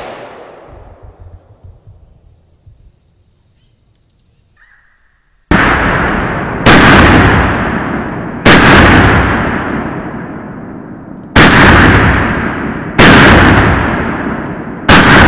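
Glock 19 9mm pistol firing 115-grain Speer Gold Dot rounds: after the fading tail of a shot and a few quiet seconds, six single shots one to three seconds apart, each echoing away over a second or more.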